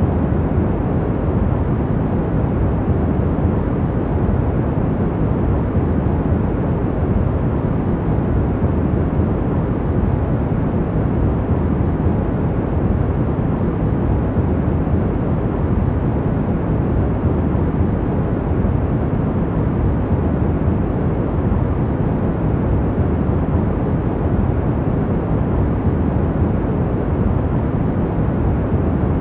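Steady, even noise with a deep, muffled character: most of its weight sits in the low end and little lies above the mid range, like brown noise played for sleep.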